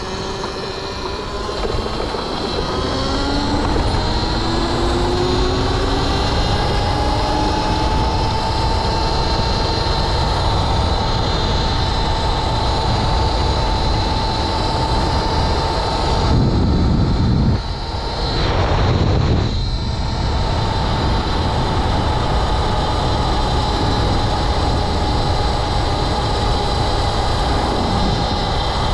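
Home-built electric motorcycle's motor whining higher and higher as the bike accelerates, then holding a steady high whine at cruising speed over a constant rush of noise. About halfway through, two brief louder rushes pass.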